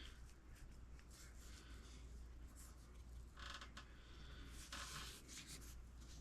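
Near silence: room tone with a steady low hum and a few faint rustles or scrapes, about three and a half and five seconds in.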